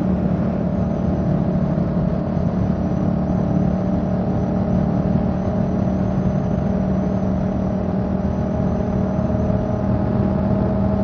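Motorcycle engine running at a steady cruise, its pitch holding even, with constant wind and road noise.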